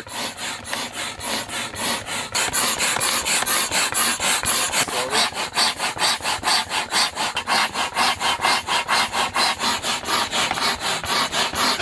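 Hand air pump being worked up and down to inflate an air mattress, each stroke a rasping rush of air, about four strokes a second in an even rhythm.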